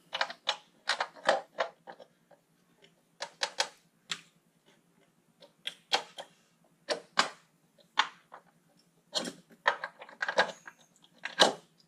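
Irregular sharp clicks and knocks of the valve cover being worked by hand onto the cylinder head of a Land Rover Series III 2.25-litre diesel engine, over its new cork gasket.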